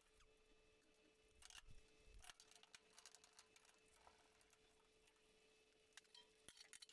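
Near silence: faint room tone with a steady low hum and a few faint clicks.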